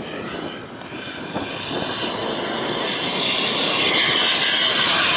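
Turbine engine of a radio-controlled model jet in flight: a steady rushing whine that grows louder and higher over the last couple of seconds as the jet comes in low.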